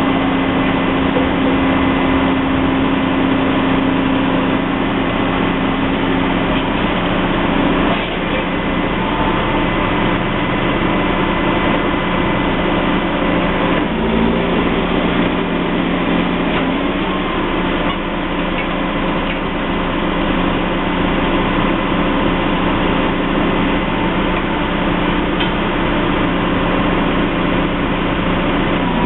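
Engine of heavy road-construction machinery running steadily, its pitch shifting a few times.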